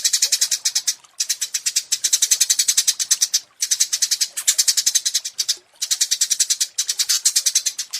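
Small songbirds singing rapid, high-pitched trilled phrases of about ten notes a second, in bursts of one to two seconds with brief pauses between them.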